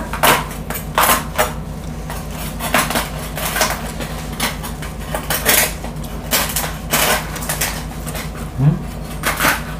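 Cleaver cutting and chopping through the crisp, crackling skin of a whole roast suckling pig (lechon), with the blade knocking against it in about a dozen irregular sharp crunches.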